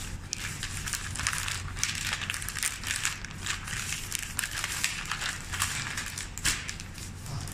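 Sheets of white wrapping paper being gathered, folded and crinkled by hand around a bouquet: a continuous rustling and crackling of paper.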